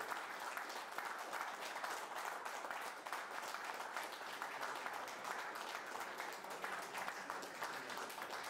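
Applause from a handful of spectators and the referee: many hands clapping together without a break.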